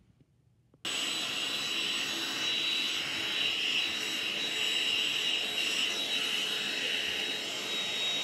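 Handheld cordless vacuum cleaner running steadily with a high-pitched whine, starting abruptly about a second in.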